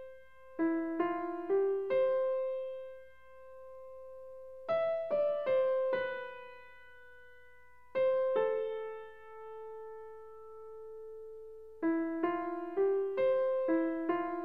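Background music on a piano-like keyboard: quick runs of single notes alternate with long notes that ring on and fade, about three seconds at a time.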